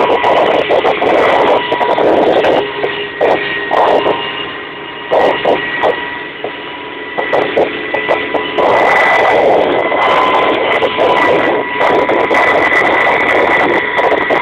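Kamov Ka-26 helicopter in flight, heard from inside the cabin: its twin radial piston engines and coaxial rotors make a loud steady din with a constant whine, dipping for a few seconds in the middle, with frequent short crackles over it.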